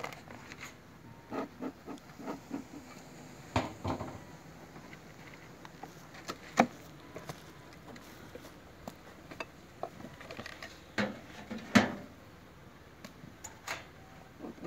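Sparse knocks, taps and scrapes of beehive parts being handled: the hive cover and frames are moved and set down on the metal hive stand, with a few louder knocks about four, six and a half and twelve seconds in.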